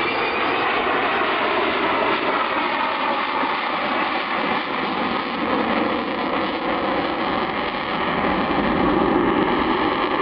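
Avro Vulcan's four Olympus turbojets roaring during an airshow pass, a steady dense roar with faint tones that slowly fall in pitch as the bomber draws away.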